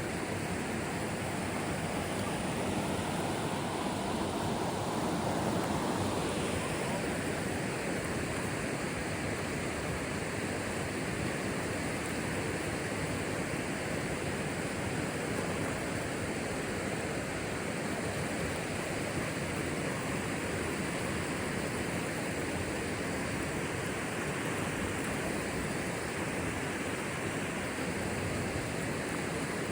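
Steady rush of river rapids, a constant even roar of white water, swelling a little louder for the first few seconds.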